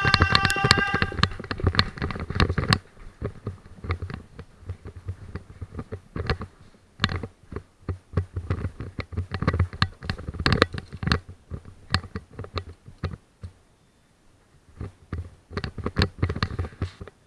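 Airsoft guns firing: sharp cracks in irregular bursts, dense for the first few seconds and then scattered, in a small indoor room. A steady pitched tone with overtones sounds at the start and stops about a second in.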